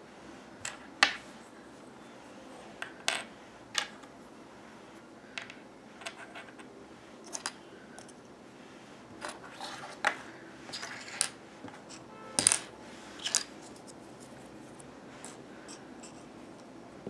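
Hard plastic toy airplane and airport play-set pieces being handled, clicking and clacking together in scattered sharp knocks with short pauses between.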